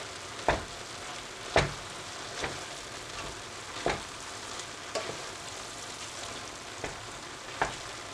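Ground-meat filling with nuts, raisins and candied fruit sizzling steadily in a frying pan while a wooden spoon stirs it, knocking and scraping against the pan about seven times at uneven intervals.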